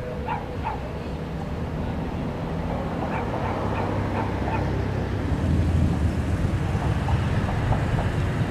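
Pickup truck engines running at low speed in a slow line of traffic, the rumble growing louder about five seconds in as one pulls up close. A dog barks twice at the start and several more times about three seconds in.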